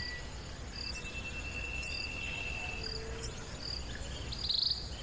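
Insect chorus: a steady high trill with short chirps repeating about once a second, and a thin whistled note held from about a second in to nearly three seconds.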